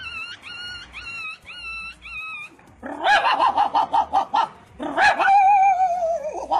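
A small dog whimpering in a string of short, high whines, about six in a row. About three seconds in, louder, lower wavering calls take over, with one long call near the end.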